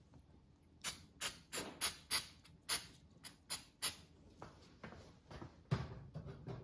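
Pump spray bottle of cyanoacrylate activator being sprayed about nine times in quick succession, each a short hiss, about three a second; a few handling knocks follow near the end.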